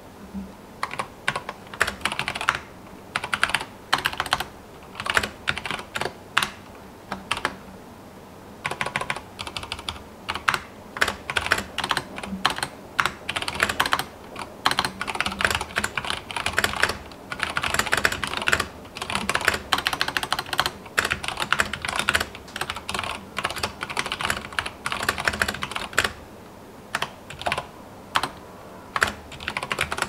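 Typing on an ikbc C87 mechanical keyboard with unlubed brown tactile switches and PBT keycaps: dense runs of key clacks in bursts, broken by brief pauses.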